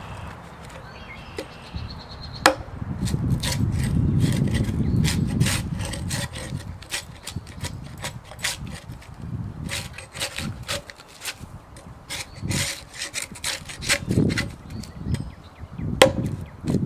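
Survive! Knives GSO-10 fixed-blade knife scraping bark off an oak log in many short, rasping strokes. A sharp knock sounds about two and a half seconds in and again near the end, and a low rumble comes a few seconds in.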